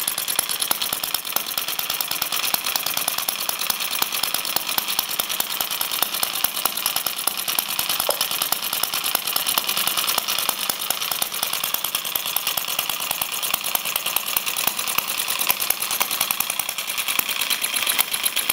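Homemade water-jacketed single-cylinder model engine running steadily, with a rapid, even firing beat and a light mechanical clatter.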